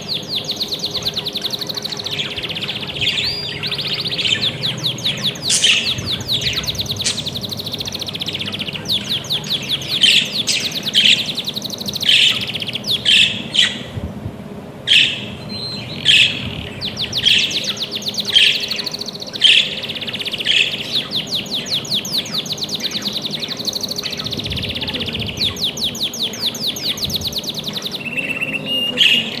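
Budgerigars chattering in a fast, continuous warble, with louder sharp chirps breaking in every second or so.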